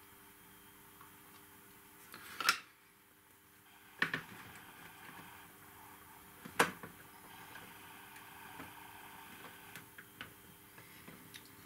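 Small scale-model parts clicking and knocking against each other as they are handled and fitted together by hand: three sharp clicks a couple of seconds apart, then lighter ticks near the end.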